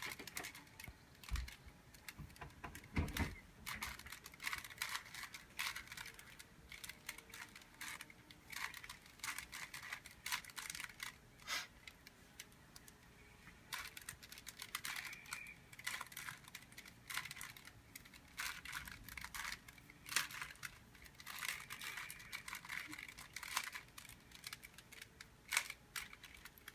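Plastic Rubik's cube being twisted by hand: quick runs of clicking and clacking as the layers turn, with a short pause about halfway through. There is a low knock about three seconds in.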